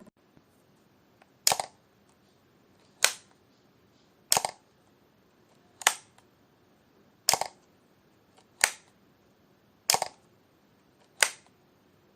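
Camera shutter firing eight times, about once every second and a half, each release a sharp click with a quick second snap right behind it.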